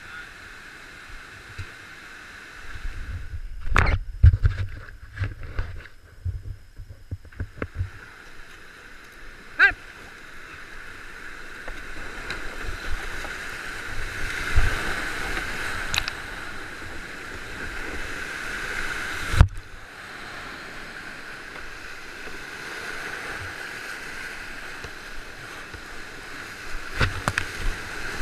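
Rushing whitewater of a creek in flood, running high at about 450 cubic feet per second, heard from a camera on a kayak. Knocks and thumps from the boat and paddle come in the first several seconds, and water splashes over the camera near the end.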